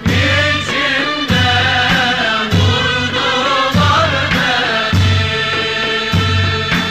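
Ottoman mehter band music: a chorus of voices singing a march over regular, heavy drum beats.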